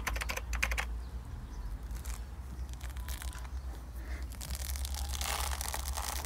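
Pomelo's thick rind and pith being torn and pulled apart by hand: crackling, tearing sounds, densest in the first second and again around five seconds in.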